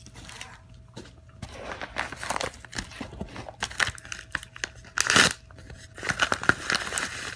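Plastic packaging being crinkled and handled, with rustling and tearing that comes and goes, loudest in a short burst about five seconds in.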